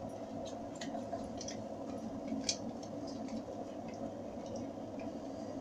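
Soft wet squelches and light clicks as a finely minced onion, tomato and pepper mixture is scraped from a glass bowl with a plastic spoon onto raw chicken pieces, with one sharper click about two and a half seconds in. A steady low hum runs underneath.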